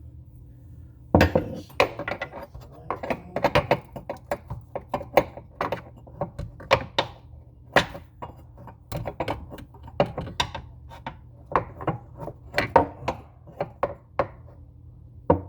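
Metal hand tools clinking and knocking in irregular clusters of sharp clacks, as wrenches or sockets are handled and fitted to a faucet supply-line nut under a sink.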